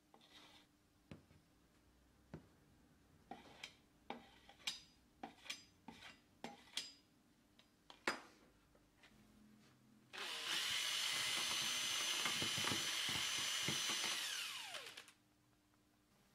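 A palette knife clicks and scrapes against a metal paint tin in a series of sharp, scattered taps. Then a power drill fitted with a mixing paddle runs steadily for about five seconds, stirring a tub of white linseed oil paint, and winds down with a falling whine.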